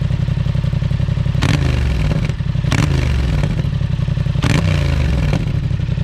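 Yamaha MT-07's parallel-twin idling through a Shark DSX-10 full exhaust system with its dB-killer fitted, blipped three times, each rev falling back to idle. It pops on the overrun.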